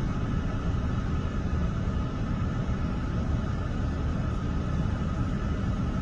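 Diesel truck engine idling: a steady low rumble.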